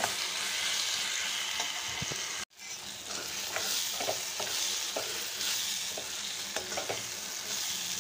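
Tomato and onion mixture sizzling in oil in a stainless steel kadai while a metal spoon stirs it, scraping and clicking against the pan. The sound cuts out for a moment about two and a half seconds in.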